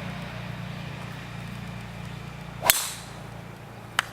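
A golf club strikes a ball once, a single sharp crack with a short ringing tail about two-thirds of the way in, over a steady low rumble. A faint click comes near the end.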